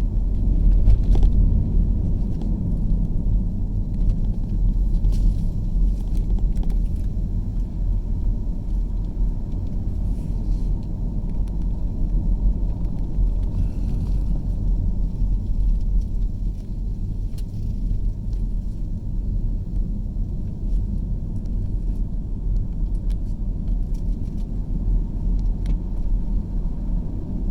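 Steady low rumble of a car driving at speed, heard from inside the cabin: tyre and road noise with engine hum, and a few faint ticks.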